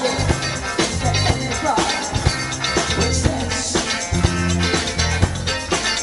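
A live band playing through the stage PA: drum kit, electric guitars and a bass line moving in sustained low notes.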